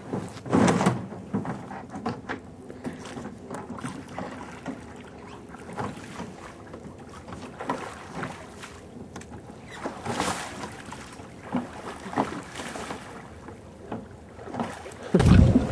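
Water splashing and sloshing in irregular bursts, like waves lapping against a small boat, with a louder low rumble near the end.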